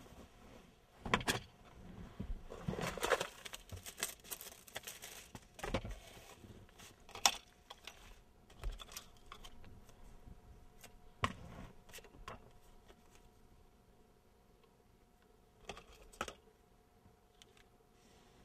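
Handling noises in a car: a cloth jacket rustling as it is moved about, then small paper cards being shuffled, with scattered sharp clicks and knocks.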